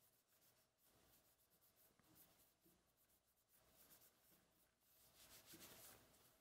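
Very faint rubbing of a cloth being wiped over a bakelite knife handle, a soft scratchy sound that swells about five seconds in.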